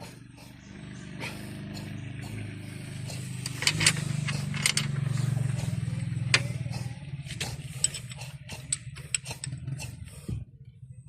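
Volvo D6D diesel engine being cranked by its starter for about nine seconds without catching, then the starter stops. The engine cranks but won't fire, which the mechanic later traces to air in the fuel system that needs bleeding.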